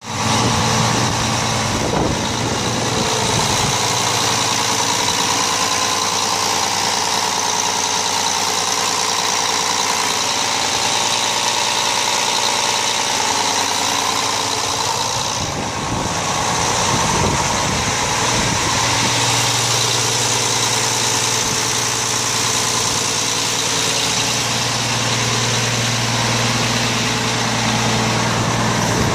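A 1998 Mack RD688S truck's diesel engine idling steadily.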